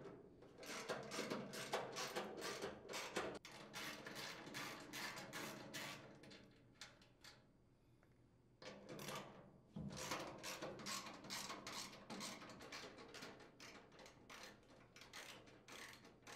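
Hand socket ratchet clicking rapidly as it unthreads mounting nuts from sheet-metal housing, in two long runs of fast clicks with a pause of about two seconds near the middle.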